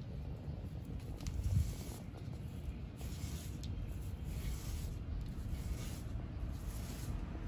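Homemade leaf paintbrush brushing and dabbing mud paint onto brown paper: a series of soft scratchy swishes, one per stroke, over a steady low rumble.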